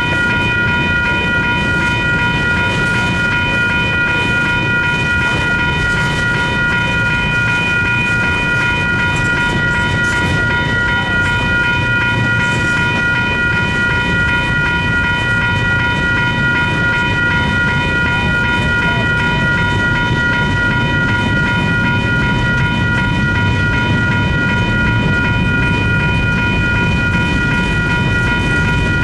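Freight train cars rolling past close by, their wheels rumbling and clacking on the rails, while a WCH Type 2 electronic crossing bell rings continuously in steady, high repeating tones.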